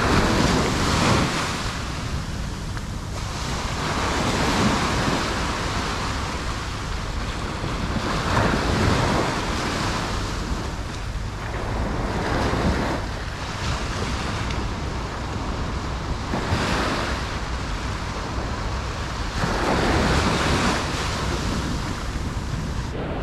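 Waves breaking and washing on a shore, swelling about every four seconds, over a steady low wind rumble on the microphone.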